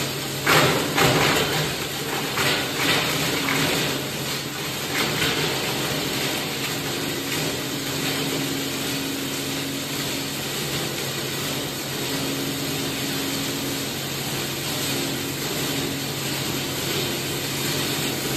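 Plastic scrap grinder running with a steady motor hum, its blades crunching through the plastic scrap being fed into the hopper. Loud crunching bursts come several times in the first five seconds, then the machine runs on steadily.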